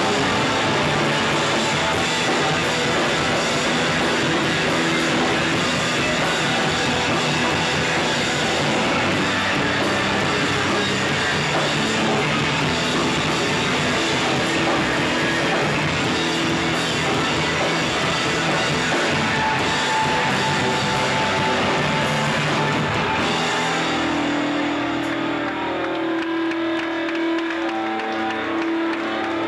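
Live shoegaze rock band playing: a dense wall of distorted electric guitars with bass and drums. About 24 seconds in the full band drops out and a held tone rings on as the song ends.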